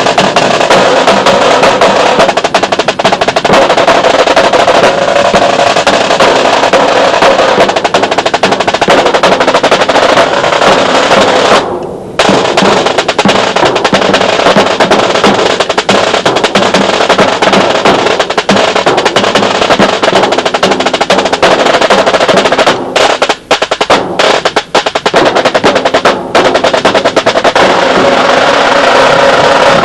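Drum line of snare and tenor drums playing a loud, fast, continuous cadence with rolls, breaking off briefly about twelve seconds in and dipping a few times near the end.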